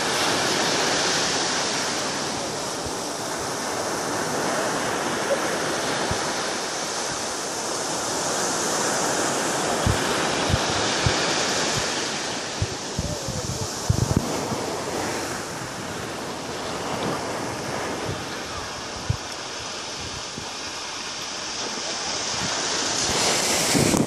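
Ocean surf breaking and washing up a sandy beach, the rush of water swelling and fading with each wave. Wind buffets the microphone in short low thumps through the middle stretch.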